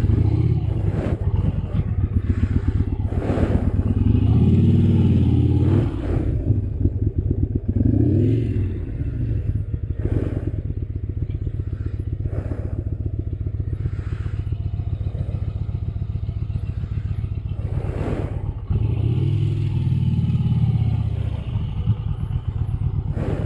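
Yamaha motorcycle engine idling and ticking over at walking pace while being manoeuvred into a tight parking spot. There are short throttle blips, the pitch rising and falling, about four, eight and twenty seconds in, plus a few light knocks, heard through a mic inside the rider's helmet.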